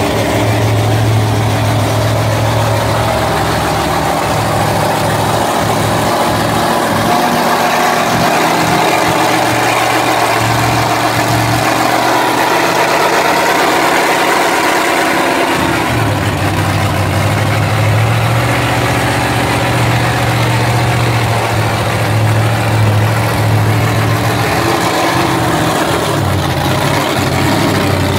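Large truck engine idling with a deep, steady rumble that thins out for a few seconds around the middle before coming back.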